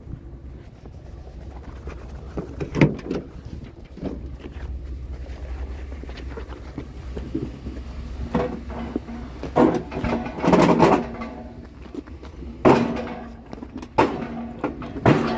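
A truck's engine running with a steady low rumble that fades out about halfway through. Sharp knocks at about three and four seconds, then a run of clanks and knocks, some ringing briefly.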